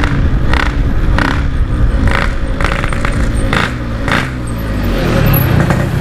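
Yamaha RX-King two-stroke single-cylinder engine running at low revs through its stock-style Packing Power exhaust, its pitch drifting up and down, with several short louder bursts as the throttle is blipped.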